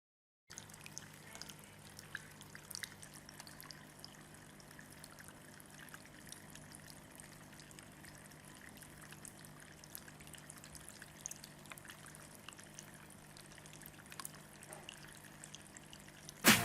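Water trickling and dripping in a small homemade tabletop fountain, faint, with many small drip ticks and a steady low hum underneath. Music starts right at the end.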